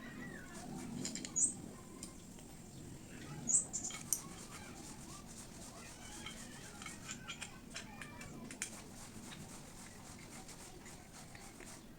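Small parts of a sewing machine motor being handled and fitted back together: scattered light clicks and taps, with a few short high squeaks, the loudest about one and a half and three and a half seconds in.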